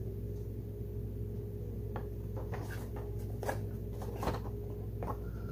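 Steady low hum with a few faint, light clicks and rustles of a boxed vinyl figure being handled and turned in the hands, its cardboard box and plastic window tapping.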